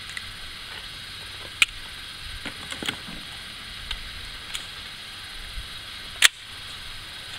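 Two sharp gunshot reports at a shooting range, about a second and a half in and again near the end, the second the louder. Lighter clicks and knocks fall between them, over a steady hiss.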